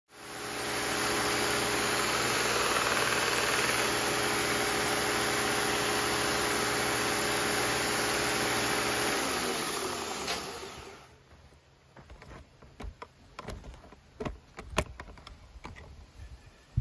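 Electric belt grinder running steadily with its motor hum and belt hiss, then switched off about nine seconds in, its hum falling in pitch as the motor winds down. A few light clicks and knocks follow.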